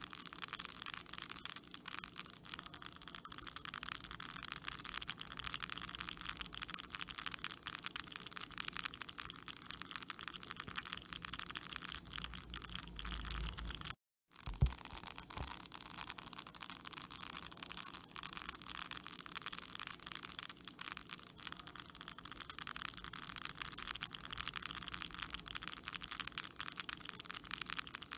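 Termites in wood: a dense, fast crackle of tiny clicks, steady except for a brief cut to silence about halfway, followed by a single sharper click.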